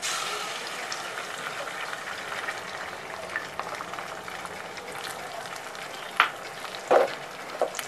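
Beaten eggs hitting hot oil in a frying pan, sizzling sharply as they are poured in about the start and then frying steadily. Three sharp knocks, the loudest sounds, come in the last two seconds.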